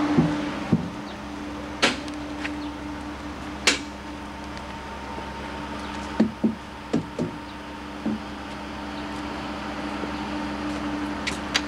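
Scattered sharp knocks and clunks of equipment cases and a truck door being handled, a single hit at a time with a quick run of four between about six and seven seconds, over a steady low hum.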